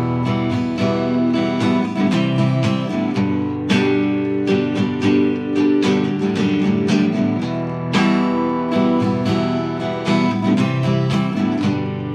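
Acoustic guitar strummed in a quick, steady rhythm, with full chords ringing between the strokes.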